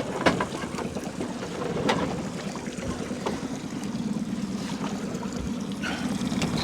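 A boat motor humming steadily under wind and water sloshing, with a few sharp knocks about a quarter second, two seconds and three seconds in.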